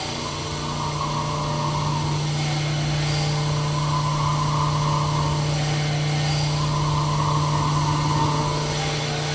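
Sunnen SV-10 honing machine running a diamond hone in an engine cylinder bore: a steady motor hum with a grinding swell that rises and falls about every three seconds as the hone strokes up and down. It is running at reduced speed because the diamonds are new and not yet broken in.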